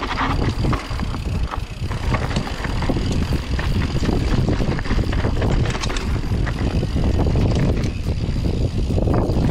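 Orbea Oiz mountain bike descending a dirt singletrack: a steady rush of wind on the microphone and tyres rolling on dirt, with many short rattles and clicks from the bike as it goes over bumps.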